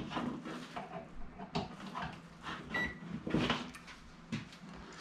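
Scattered knocks and clicks of a countertop microwave oven being handled and plugged in. About three seconds in comes one short, high electronic beep from the microwave.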